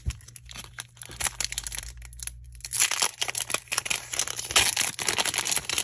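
Foil Pokémon booster-pack wrapper crinkling and tearing as it is ripped open by hand, an irregular crackle that comes in bursts, loudest about three seconds in and again near the end.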